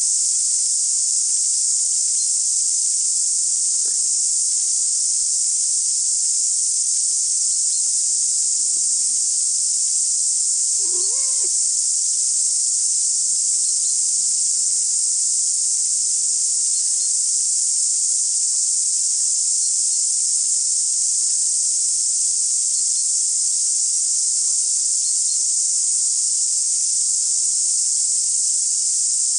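Steady high-pitched hiss at an even level, with a faint short pitched call about eleven seconds in.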